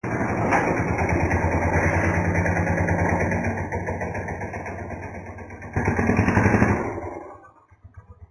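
A motor engine running with an even pulsing beat. It is loud at first, eases off, swells briefly about six seconds in, then fades away near the end.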